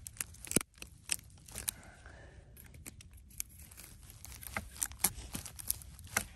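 Dry crackling and irregular sharp clicks from pine cones and twigs on a fallen branch being prodded with a pointed tool.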